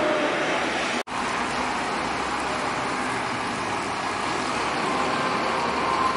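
Scania K340iB coach's rear-mounted diesel engine running at low revs as the bus rolls slowly through a turn, a steady engine sound broken by a sudden brief drop-out about a second in.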